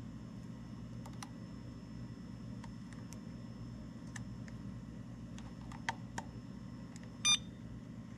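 Faint clicks and taps of a small battery plug being handled at a hobby LiPo charger, over a steady low hum; about seven seconds in, the Ultra Power UP-S6AC charger gives one short electronic beep as it switches to high-voltage (LiHV) mode.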